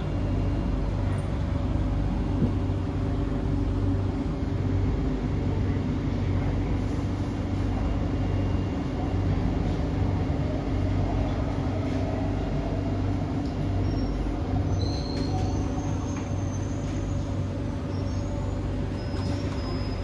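Cabin noise inside a Kawasaki C151B metro train running on its line and slowing into a station: a steady rumble of wheels on rail with a low motor hum. A few faint high whines come in the last few seconds as it brakes to a stop.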